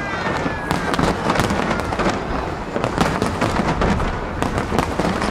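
Aerial display fireworks going off in rapid succession: a dense, continuous stream of bangs and crackles with no pause.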